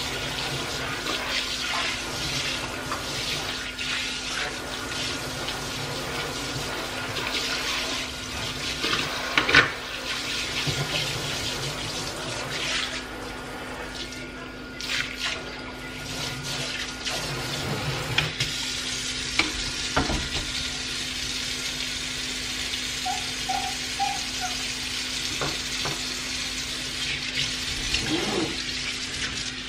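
Water running from a kitchen faucet into a stainless steel sink, with scattered knocks and clatter. A sharp knock about nine and a half seconds in is the loudest.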